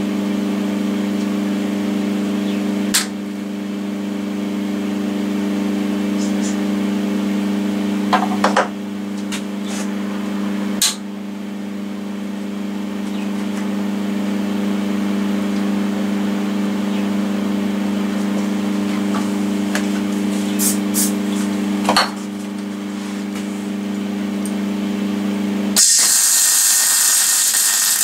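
A steady electrical hum with a few sharp clicks. Near the end a MIG welder's arc strikes and crackles loudly for about two seconds as a tack weld is laid.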